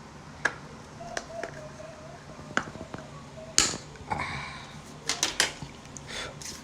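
Plastic clicks and snaps from the removable back cover of a Nokia 1.3 phone being prised open by hand. The clicks are irregular; the sharpest comes about three and a half seconds in, and a quick run of clicks follows a little after five seconds.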